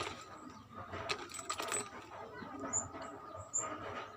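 Rummaging through a school bag: scattered small clicks and rustles of items being moved about.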